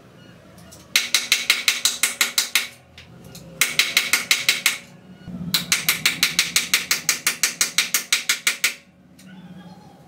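A ratchet wrench with a hex bit clicks in three quick runs of about ten clicks a second as it works at a bicycle's handlebar stem bolt. The bolt is rusted tight and its hex socket is damaged.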